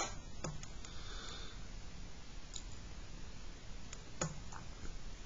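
Quiet room with a few faint, isolated clicks and taps from a pen and hand moving over a paper worksheet on a desk, the sharpest about four seconds in.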